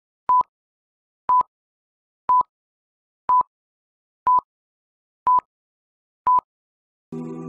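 Short electronic beeps, all at the same single high pitch, one each second with silence between, seven in all. Music begins near the end.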